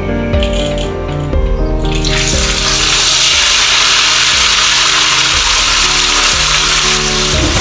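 A batter-coated whole fish laid into hot oil in a frying pan, sizzling loudly from about two seconds in, over background music.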